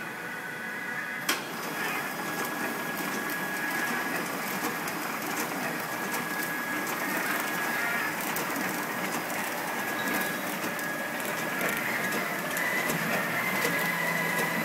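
Automatic flow-wrap packing line running: steady machine noise with a constant high whine and rapid light clicking. One sharp click about a second in.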